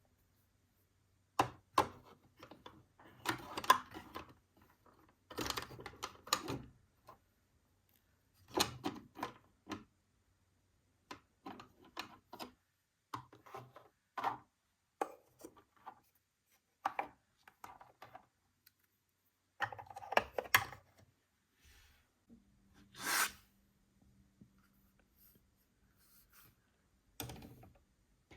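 Hands handling plastic toys and packaging: scattered clicks, taps and short rustles with quiet gaps between them, and one longer scraping rustle about two-thirds of the way in.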